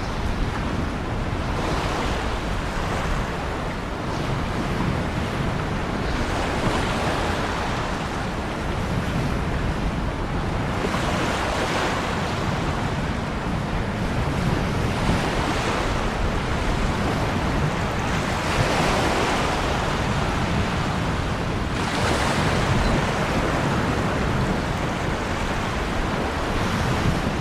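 Ocean surf: a continuous rushing wash with waves breaking and swelling every few seconds.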